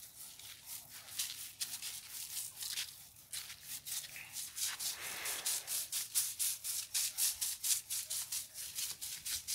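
Hand-pumped shoulder pressure sprayer spraying liquid through its wand: a rhythmic hiss pulsing about four times a second, steadier for a moment near the middle.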